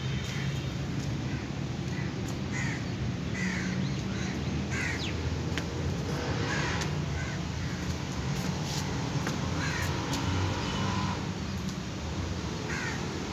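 Birds giving short calls, one every second or two, over a steady low hum.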